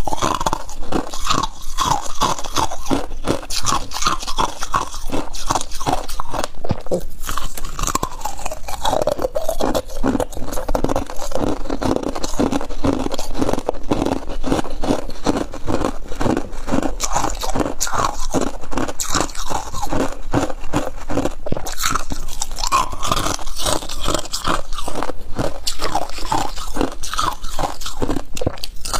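A person biting and chewing hard ice, a continuous run of sharp crunches several a second, picked up close by a lapel microphone.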